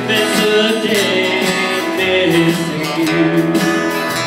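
Live band playing a song on several strummed acoustic guitars.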